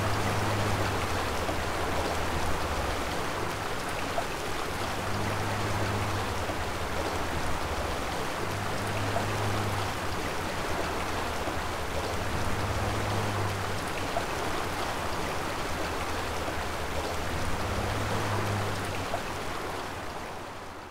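Steady rush of running water, with a low hum that swells and fades every four seconds or so; the sound fades out near the end.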